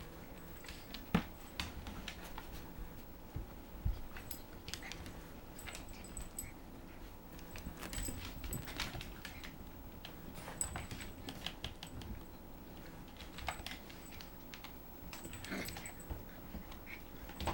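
Four-week-old Bouvier des Flandres puppy playing on a hard kitchen floor: irregular light clicks and taps of claws and paws, with an occasional small whimper.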